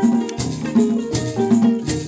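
Traditional Ugandan music: a plucked string instrument repeating a short melodic figure, with a shaken rattle marking a steady beat of several strokes a second.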